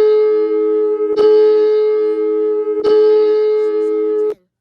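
Emergency alert system alarm tone: a loud, steady electronic tone of two low pitches with many overtones, broken by a sharp click about every one and a half seconds, cutting off abruptly shortly before the end.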